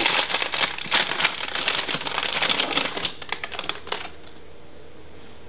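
Plastic packaging crinkling and rustling with rapid small clicks as parts are unpacked by hand, stopping about four seconds in.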